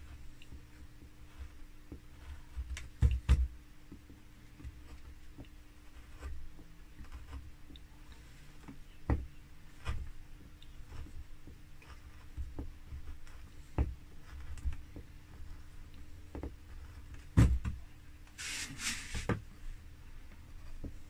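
Carving chisel working linden wood by hand: sharp cuts and knocks a few seconds apart, with a short scraping hiss near the end.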